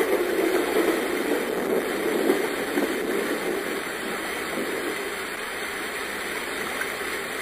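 Steady heavy rain falling, a dense even hiss, easing a little over the seconds.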